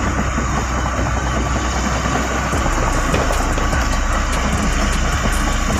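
Komatsu D85PX bulldozer's diesel engine running steadily while it works, its low note shifting about halfway through.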